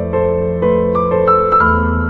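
Background piano music, soft notes struck about twice a second over a held low bass note.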